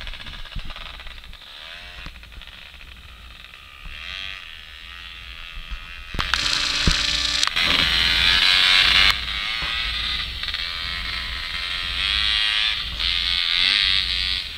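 Snowbike's dirt-bike engine running and revving at a distance, its pitch rising and falling with the throttle. A louder rush of noise comes from about six to nine seconds in, over a low wind rumble.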